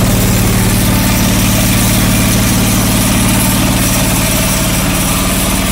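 John Deere 445 garden tractor's liquid-cooled V-twin engine idling steadily, warmed up after a few minutes of running.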